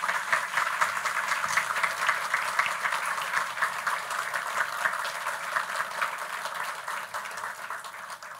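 Audience applauding, many hands clapping together; the applause gradually dies away near the end.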